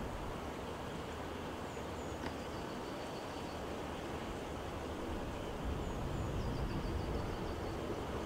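Dassault Falcon 7X three-engine business jet on final approach, still far off: a faint, steady jet rumble that slowly grows louder toward the end. A small bird chirps twice, each time trailing off in a short trill.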